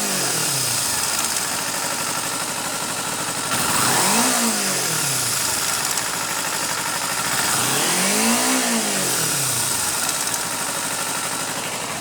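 Kawasaki Ninja 250's parallel-twin engine idling and blipped twice, each time rising and falling smoothly back to idle. A little ticking comes from the engine as the revs reach the bottom of the range; the owner isn't sure whether it is a problem.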